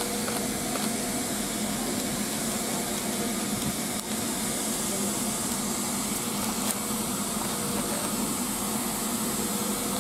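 Steam locomotive 44871, an LMS Stanier Class 5 'Black Five' 4-6-0, standing with steam blowing off from its boiler: a steady, unbroken hiss, the sign of the safety valves lifting at full boiler pressure.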